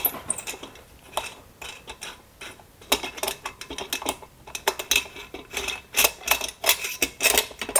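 Small metallic clicks and clinks of a hand tool on the screw and muffler as the one remaining muffler screw is worked out of a STIHL MS291 chainsaw. The clicks come quickly and unevenly, and grow busier about three seconds in.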